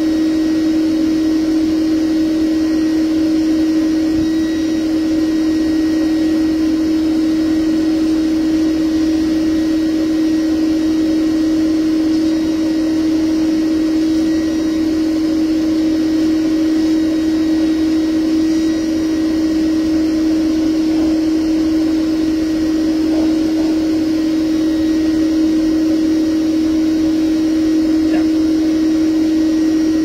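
Bee vacuum running with a steady, unbroken hum while its corrugated hose sucks bees off exposed honeycomb.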